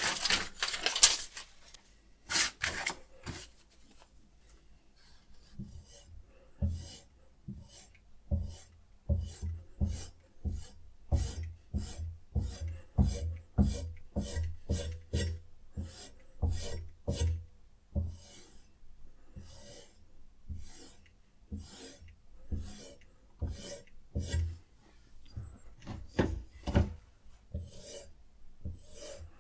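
A sharpening stone drawn back and forth across a knife edge clamped in a guided sharpening system, in quick, regular rasping strokes, each with a light knock.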